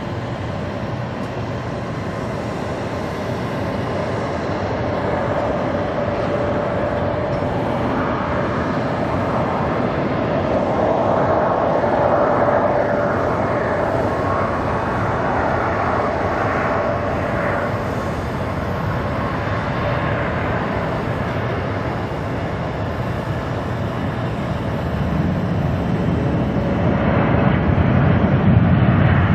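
Boeing 777-300 airliner's twin Rolls-Royce Trent jet engines on final approach and landing: a steady rushing jet noise with a droning whine that grows louder as the aircraft comes near. Over the last few seconds a deeper rumble swells as the main wheels touch down on the runway.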